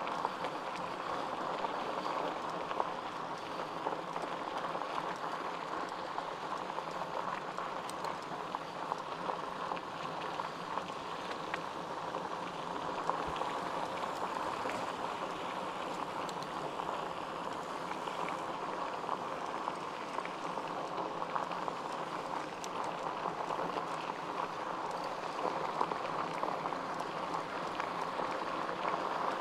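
Mountain bike rolling along a dirt trail: a steady crackling hiss from the tyres, with scattered small clicks and ticks from grit and the bike.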